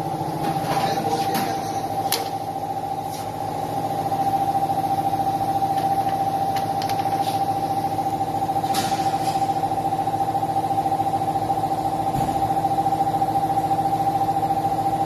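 A steady mechanical hum with a constant whine, growing a little louder about four seconds in, with a few light clicks and knocks of tools over it.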